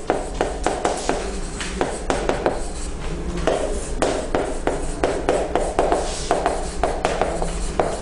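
Chalk writing on a chalkboard: quick taps and scratches of the chalk, several strokes a second, as words are written out.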